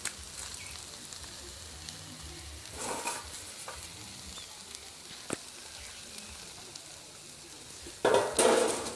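Rice frying with tomato paste in a pot, sizzling steadily as a spoon stirs and scrapes it. There is a sharp tap about five seconds in, and a louder flurry of stirring near the end.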